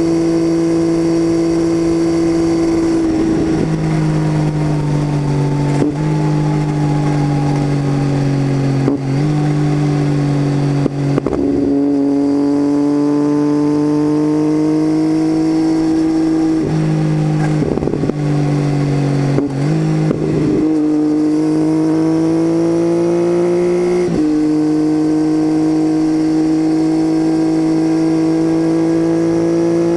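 Triumph Tiger 800's inline three-cylinder engine running through an unbaffled titanium Leo Vince exhaust, heard from on board while riding. The steady drone breaks briefly several times where the pitch steps, as with gear shifts, and the pitch climbs slowly toward the end.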